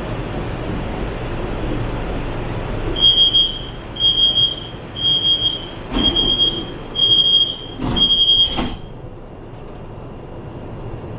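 Door-closing warning on a CSR Zhuzhou "AMY" light rail train: six short high beeps about once a second over the steady hiss of the carriage at the platform, with knocks as the sliding doors shut near the end of the beeping. A quieter steady hum follows once the doors are closed.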